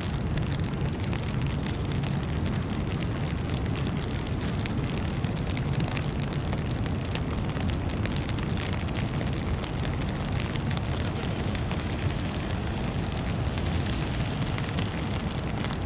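Steady city street ambience during a snowfall: a constant low rumble with faint, scattered light ticks over it.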